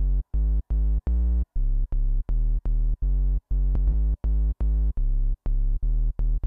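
Serum software synthesizer playing a deep bass line on a plain, unfiltered triangle-wave oscillator: short, detached notes in a repeating pattern, about three a second, moving between a few pitches.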